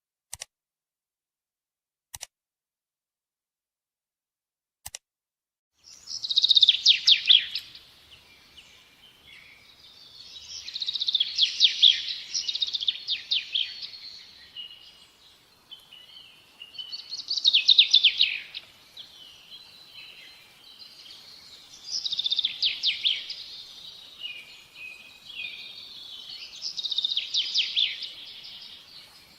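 Three short clicks in otherwise dead silence, then a songbird singing: loud, high, rapid trilled phrases repeated about every five seconds, with softer twitters between them.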